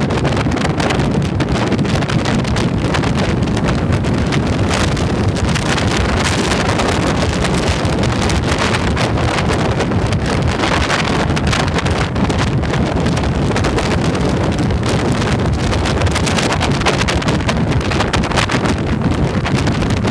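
Steady wind rushing over the microphone of a camera mounted on a moving motorcycle's handlebars, with the motorcycle's engine running underneath at riding speed.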